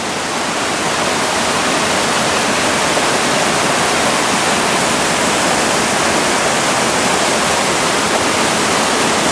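Waterfall: water rushing and tumbling over the edge of the falls in a loud, steady roar.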